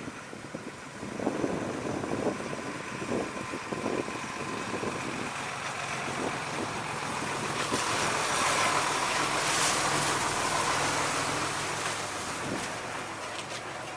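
Heavy farm machinery engine running, with uneven rumbling early on, then a broad rushing noise that swells around the middle and eases off near the end.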